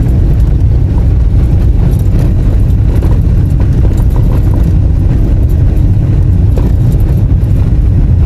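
Car tyres rumbling over cobblestone paving at low speed, with small irregular knocks from the stones, heard from inside the car.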